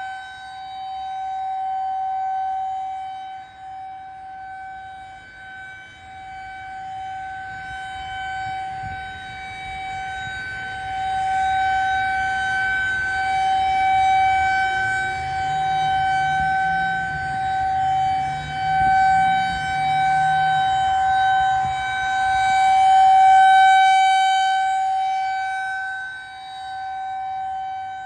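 Federal Signal 2001-SRN electromechanical outdoor warning siren sounding one steady tone during a test, swelling and fading in loudness as its head rotates.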